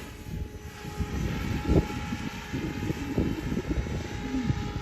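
SAB Goblin 700 electric RC helicopter in flight: a rough, uneven rotor rumble with a faint steady whine running through it.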